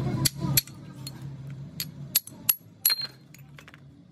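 Steel hand tools and parts clinking against each other and a metal sheet as they are handled and set down: about eight sharp metallic clinks, a few with a short ring. A low background drone cuts off about half a second in.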